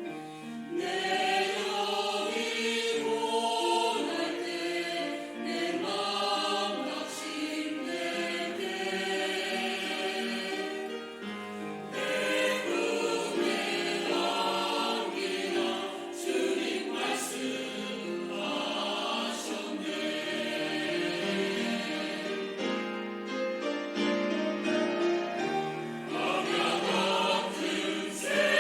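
Church choir singing a hymn, several voices together in sustained, phrased lines.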